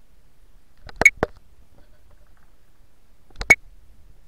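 Short sharp knocks in two quick pairs, one about a second in and another about three and a half seconds in, over a faint low background.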